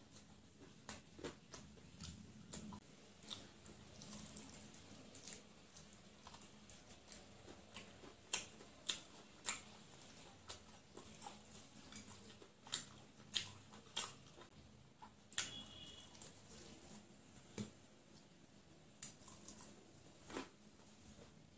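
Chewing and picking at a crispy fried chicken drumstick: irregular sharp crunches and wet mouth clicks.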